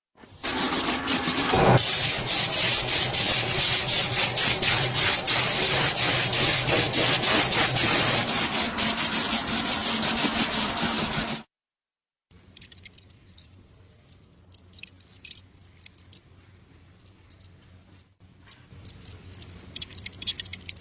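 Loud, dense scraping or rubbing noise from hand-tool work, full of rapid clicks; it cuts off suddenly after about eleven seconds. After a short gap come quieter scattered clicks and handling sounds over a low hum.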